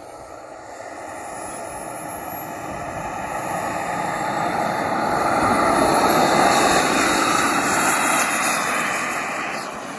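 Kingtech K-100 model jet turbine of a radio-controlled Scorpion sports jet at high power on its takeoff roll: a rushing jet noise with a thin high whine that rises in pitch, growing louder as the jet approaches and passes, loudest about six seconds in, then easing off.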